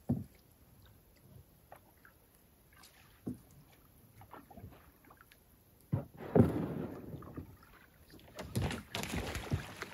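Canoe paddle strokes, the paddle splashing and dipping in calm water, with a sharp thump at the very start and a few light knocks of paddle on hull. The splashing grows louder about six seconds in and again near the end as the canoe comes in close.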